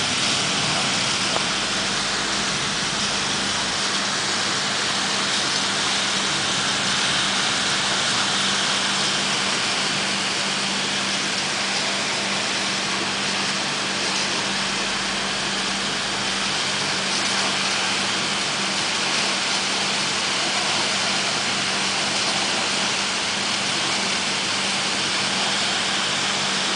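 Heavy tropical rain pouring steadily, with a steady low hum underneath.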